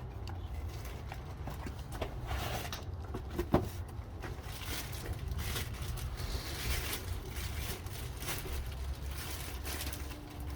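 Parts being handled while a new brake rotor is fitted: scattered light clicks and knocks with some rustling over a low steady hum, and one sharp click about three and a half seconds in.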